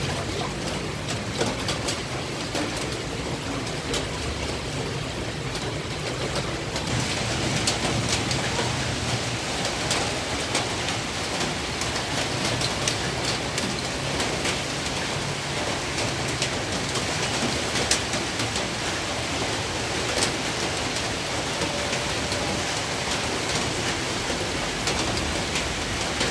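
Heavy rain falling steadily, a dense hiss full of sharp drop impacts. It grows a little fuller about seven seconds in.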